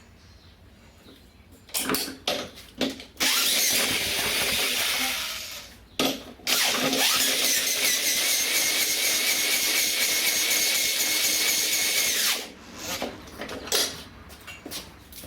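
Corded electric drill spinning over a small gasoline engine to crank it, in two runs: a short one about three seconds in and a longer one from about six seconds, each with a steady motor whine, after some clicking as it is fitted on. The engine does not catch; it is a hard start caused by a lot of oil in the combustion chamber.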